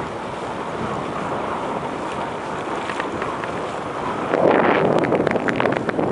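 Wind rushing over the microphone while riding along on a bicycle. About four seconds in it gets louder, with a run of quick irregular clicks or rattles.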